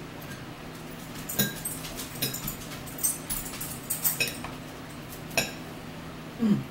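A fork clinking and scraping against a dinner plate during a meal, in a handful of sharp separate clinks. Near the end comes a short sound that falls in pitch, over a steady low hum.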